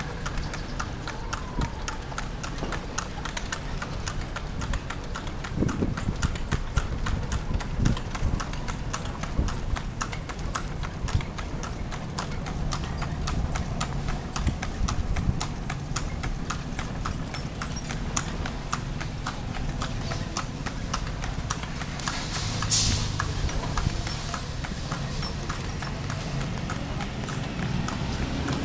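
Calesa horse's hooves clip-clopping on an asphalt street as it pulls the carriage, a quick, even rhythm of hoofbeats over a steady low rumble.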